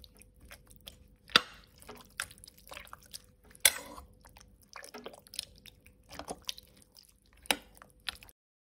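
Slotted metal spoon stirring thick meat sauce in a crock pot insert: wet squelching, with light scrapes and three sharp clinks of the spoon against the crock. The sound cuts off suddenly near the end.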